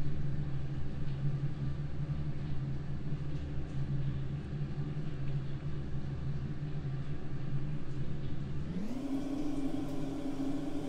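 A steady low machine hum with several overtones, which rises quickly in pitch about nine seconds in and then holds at the higher note.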